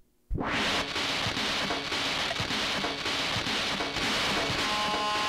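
Circuit-bent Yamaha DD6 electronic drum pad putting out a dense, crackling wash of glitchy noise. It cuts out for a split second at the very start, then resumes, and steady held tones come in near the end.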